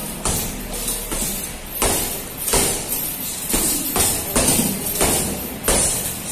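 Boxing gloves punching a hanging heavy bag, each punch a sharp slap-thud, landing in irregular combinations at roughly one to two punches a second.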